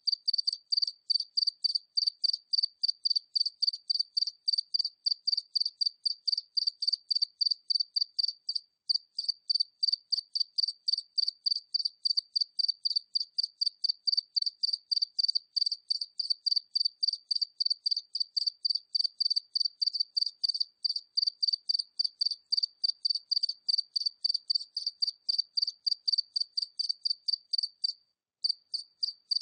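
A single cricket chirping steadily at medium distance, about three short high chirps a second. The chirping breaks off briefly about nine seconds in and again near the end.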